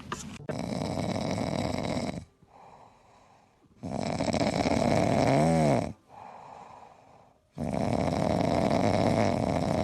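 A sleeping pet snoring loudly: three long, noisy snores about three and a half seconds apart, with quieter breaths between them.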